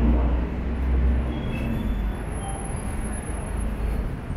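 City street traffic, with the low rumble of a large vehicle going by. The rumble is strongest in the first two seconds and then fades.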